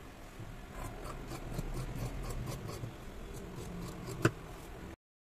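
Tailor's scissors cutting through dress fabric on a table: a quick run of short snips, about four or five a second, with one sharper click near the end. The sound then cuts off suddenly.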